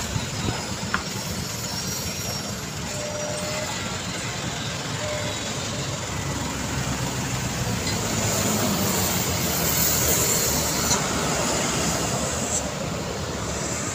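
Street traffic: a red light truck loaded with LPG gas cylinders rolls slowly past close by, its engine running, with cars and motorbikes behind it. The traffic noise grows louder in the second half as more vehicles pass.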